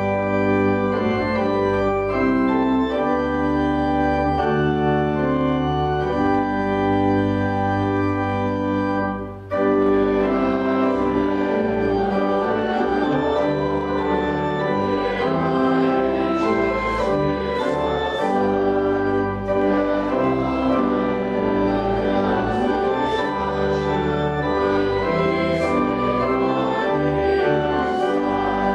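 Organ music: sustained chords held and changed, with a brief break about nine seconds in, then busier playing.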